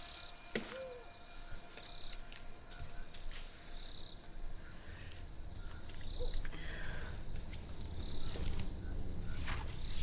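Night-forest ambience of insects chirring in a steady high trill, swelling into a brighter pulse about every two seconds. Scattered light clicks run through it, and a low rumble builds in the second half.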